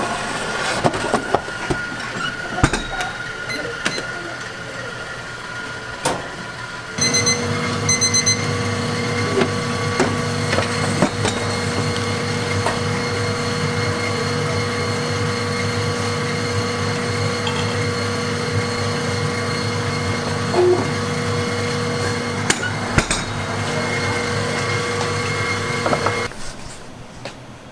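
Metal baking trays clattering and knocking against the rails of a stainless deck oven. About seven seconds in, a steady machine hum starts with occasional knocks over it, and it cuts off suddenly near the end.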